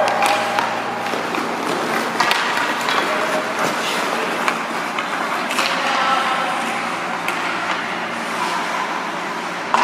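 Youth ice hockey game in play: a steady wash of rink noise with scattered sharp clacks, the loudest near the end, and faint distant shouts.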